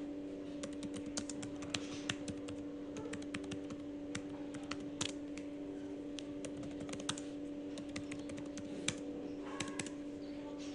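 Typing on a computer keyboard: a run of irregular keystroke clicks, some sharper than others, over a steady low hum.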